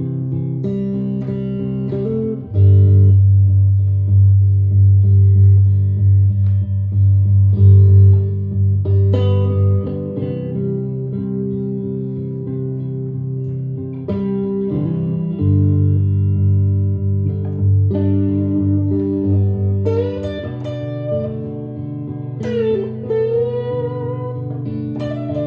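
Electric guitar playing a traditional schottische melody over sustained low chords, with bent notes near the end.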